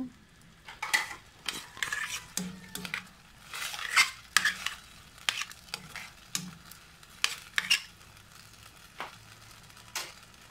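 Metal spatula stirring a thick vegetable sauce in a stainless steel pan, scraping and clinking against the pan in irregular strokes that thin out near the end. The just-added vinegar and sugar are being stirred into the sauce.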